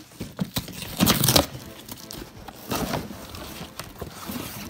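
Cardboard box being torn apart and handled: rough ripping and crinkling, with the loudest tear about a second in and another near three seconds.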